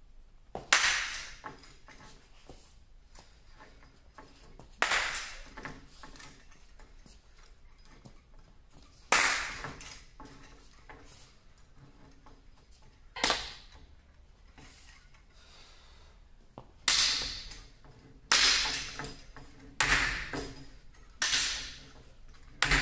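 A polypropylene broadsword striking a hanging wooden ball, nine sharp knocks each trailing off in the hall's echo. The first four come about four seconds apart, and the last five follow quickly, about a second and a half apart.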